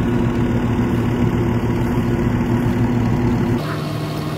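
Tractor engines idling with a steady hum. About three and a half seconds in the sound cuts to a quieter idle with a different pitch.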